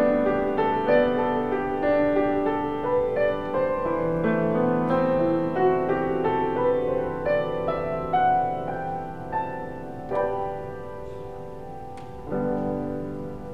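Grand piano played solo: a slow, gentle piece of chords and melody, growing softer in the last few seconds with a couple of fresh chords struck near the end.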